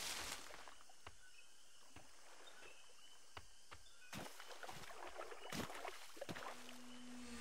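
Quiet swamp ambience: a rustle of large leaves being pushed aside at the start, then scattered drips and small plops on still water with faint bird chirps. From about four seconds in, footsteps wade and splash through shallow water.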